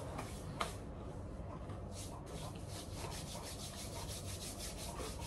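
Faint, quick crunching of someone chewing crisp fried bhajiya, with a single sharper click about half a second in.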